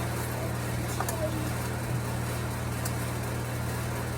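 Air-conditioning unit running with a steady low hum and fan noise, with a few light clicks over it.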